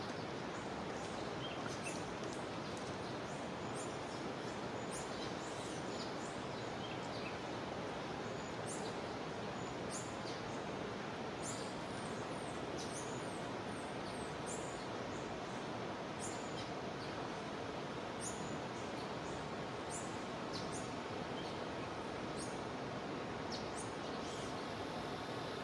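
Jungle river water flowing with a steady rush, with short, high chirps of birds scattered throughout.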